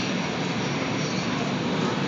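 Hurricane wind-simulator booth blowing a steady rush of air, its wind speed easing down from about 68 to 54 mph as the run winds down.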